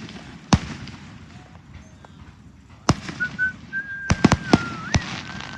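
Fireworks going off: a sharp bang about half a second in, another at about three seconds, then a quick run of bangs between four and five seconds. A high, steady whistle holds through the second half, dipping and jumping up near the end.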